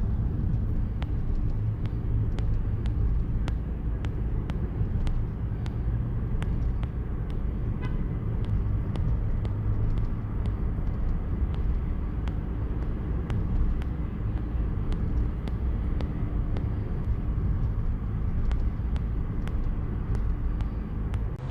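Car driving: steady low road and engine rumble, with faint regular ticking over it.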